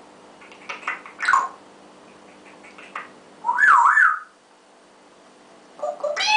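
Congo African grey parrot calling: a few short squawks and chirps, then a wavering whistle that rises and falls twice about three and a half seconds in, the loudest sound here, and another quick run of calls near the end.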